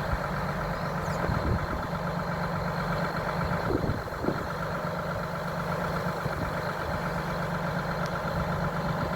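Heavy diesel engine idling steadily, a constant low hum, with a couple of faint knocks about four seconds in.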